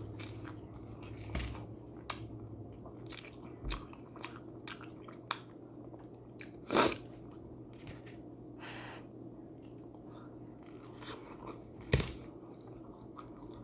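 A person biting and chewing a Hot Pocket close to the microphone, with many small wet mouth clicks and lip smacks. Two louder bites or smacks come about seven and twelve seconds in.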